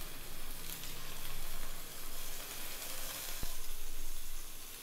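Paneer cubes sizzling as they fry lightly in hot ghee in a pan, a steady hiss with a single sharp click about three and a half seconds in.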